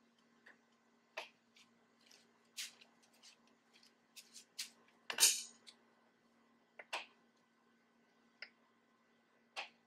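Light clicks and knocks from the parts of a hitch-mounted bike carrier being adjusted by hand, about a dozen of them spread out, with one louder knock about five seconds in.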